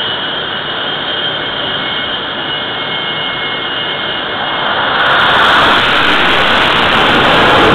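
Jet engine running at high power on a carrier flight deck: a steady jet rush with a high whine. About five seconds in it grows louder and fuller as a jet goes to launch power.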